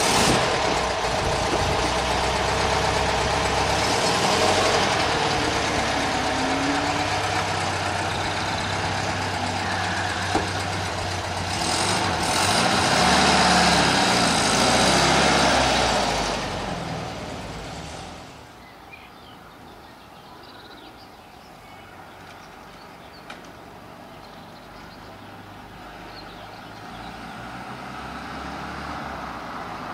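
Volkswagen Beetle's air-cooled flat-four engine running close by, revving with shifting pitch as the car pulls away about halfway through. It then fades to a faint distant running sound and grows louder again near the end as the car returns.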